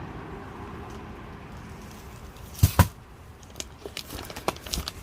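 Fireworks packaging being handled: two quick sharp knocks close together about two and a half seconds in, then a scatter of small clicks and rustles.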